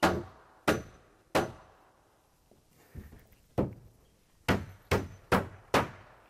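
Hammer driving nails into plywood roof sheathing on wooden trusses: three sharp blows with a brief ring after each, a pause, then five more blows, the last four in quick succession.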